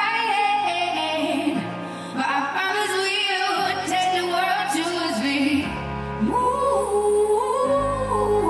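A song with a singer's voice holding long notes with vibrato over instrumental backing and slow-changing bass notes.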